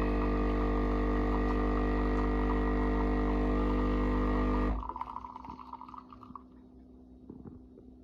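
Philips LatteGo fully automatic espresso machine's pump buzzing steadily while it dispenses. The pump cuts off abruptly a little under five seconds in, leaving a brief higher hum and then only faint small sounds.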